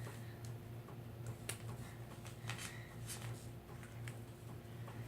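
A 2x2 Rubik's Cube being turned by hand, its plastic layers clicking as they rotate, a few scattered clicks over a steady low hum.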